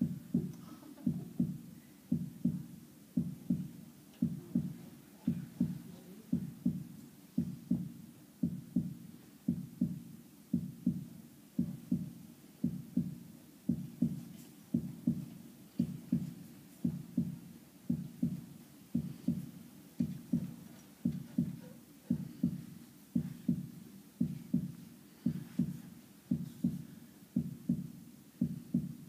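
A heartbeat sound effect: a steady lub-dub, double low thumps about once a second, keeping an even pace throughout.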